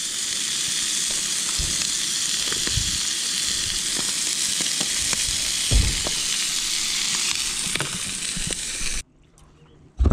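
Rainbow trout fillets sizzling in hot oil in a frying pan on a camp stove: a steady frying hiss with a few faint knocks. The hiss cuts off suddenly near the end, and a single sharp knock follows.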